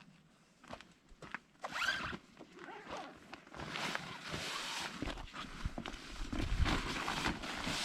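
A zipper being pulled open on the swag tent's carry bag, followed by continuous rustling and low bumps as the bag is handled and the rolled tent is worked out of it.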